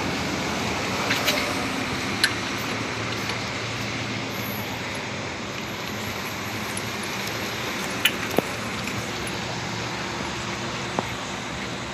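Steady road traffic noise with a few sharp metallic clicks, two about a second in, one a second later and two more about eight seconds in.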